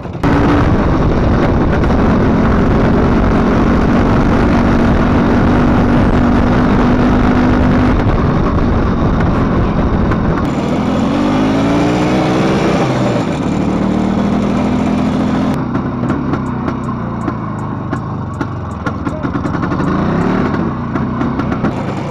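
Motorcycle engine under way, holding a steady note and then revving up with rising pitch, twice, as it accelerates; heavy wind noise on the microphone over it.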